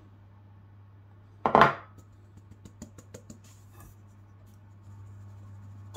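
Flour being sifted through a stainless-steel mesh sieve over a glass bowl: one louder brief scrape about a second and a half in, then a run of light, irregular ticks as the sieve is tapped and shaken.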